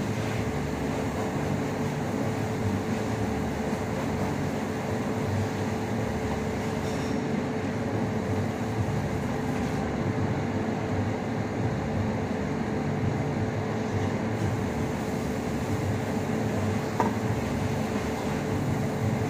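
Steady mechanical hum and rushing noise with one constant mid-pitched tone and a low rumble underneath, unchanging throughout, with a faint knock about three quarters of the way in.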